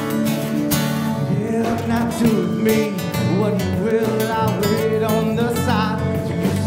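Live band music: strummed acoustic guitars over electric bass, with a man's lead vocal coming in about a second and a half in.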